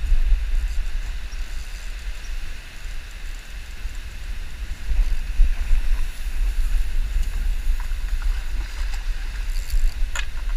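Wind buffeting the camera microphone, a loud, gusting low rumble, with a short sharp click near the end.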